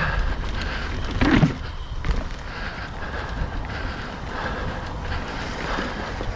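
Mountain bike descending a rough trail: wind rushing over the microphone with a steady rumble and rattle from the tyres and bike, and a louder thump about a second and a half in.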